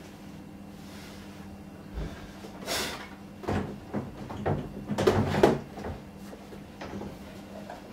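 Knocks, clunks and scraping as heavy UPS battery units are worked out of an external battery pack on a high shelf. The sounds come in a cluster from about two seconds in and are loudest just past the middle.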